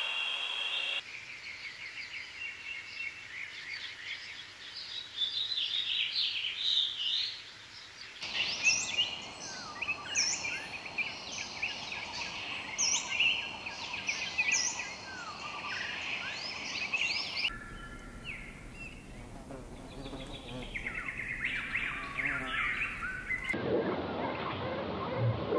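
Wild birds chirping and calling over forest ambience, many short, high chirps overlapping. The background changes suddenly several times as the recording is cut between scenes.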